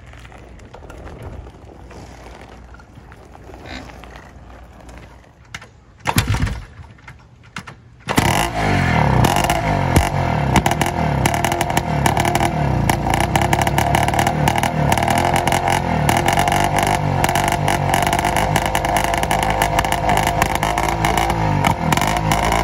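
Greeves single-cylinder two-stroke motorcycle engine running steadily with a rapid, even exhaust beat, coming in abruptly about eight seconds in. Before that there is only quieter background sound, broken by a short loud noise about six seconds in.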